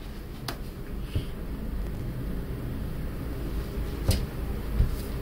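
Handling noise from the camera or phone as a hand reaches for it: a few light knocks and clicks over a steady low room hum.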